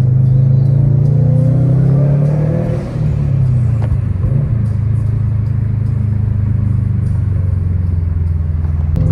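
Car engine running with a steady low drone. Its pitch climbs about two seconds in, drops back around three seconds, then holds steady.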